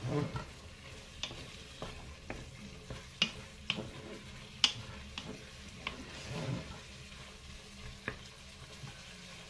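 Wooden spatula stirring pork kidneys as they brown in a Cookeo multicooker bowl: irregular sharp clicks and scrapes of the spatula against the pot over a faint sizzle of the meat frying.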